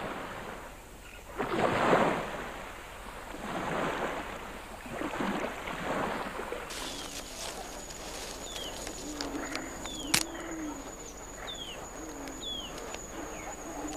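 Shallow surf washing up the beach in small swells about every two seconds. About halfway through, this gives way to forest ambience: a steady high-pitched insect drone, short falling bird chirps about once a second, a lower wavering call and one sharp click.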